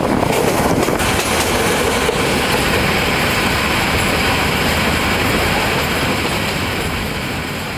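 A moving passenger train heard from inside a carriage: the steady running noise of the wheels on the track. It fades out near the end.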